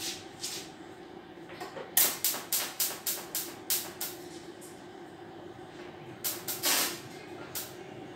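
Argon (TIG) welding on stainless-steel tubing: a run of short hissing crackles from the arc at the joint, about three a second, pausing and then coming again near the end, over a steady low hum.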